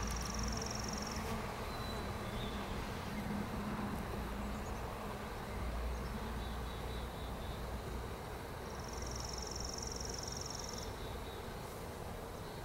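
Honey bees from a freshly installed package colony buzzing around the open hive, a steady low hum. A short, high, rapid trill sounds twice, once at the start and again about two-thirds of the way through.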